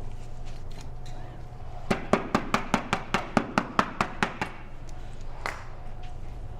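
A rapid run of about a dozen sharp taps, roughly five a second, starting about two seconds in, with one more tap a second later.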